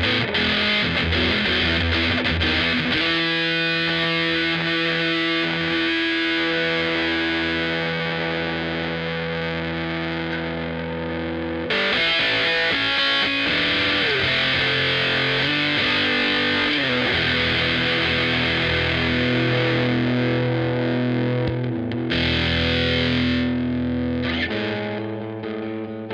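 Fuzz-distorted notes and chords from a Squier VM Jazz played through a Killer Otter Electric Party Animal fuzz pedal into an AC30 amp modeler, held for a few seconds each. The tone turns much brighter about twelve seconds in and darker again near the end as the pedal's settings change.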